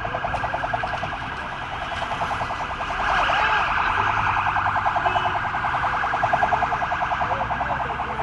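An electronic siren pulsing rapidly, several pulses a second, growing louder about three seconds in.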